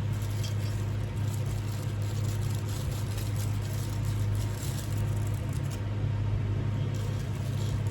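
A steady low hum with faint, scattered light clicks and rustles of parts being handled.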